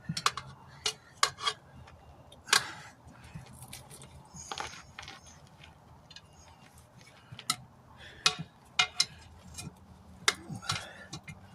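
Metal pry bars clinking and knocking against the steel wheel rim in scattered sharp strikes while the tire is levered off by hand, over a faint steady hum.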